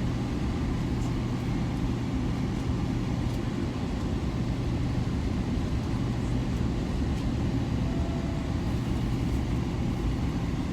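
Steady low rumble of a vehicle heard from inside, with a constant low hum under it.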